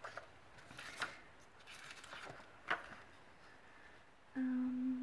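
Plastic sticker sheets crackling and rustling as they are shuffled by hand, with a couple of sharp crinkles. Near the end a person hums one steady, held note.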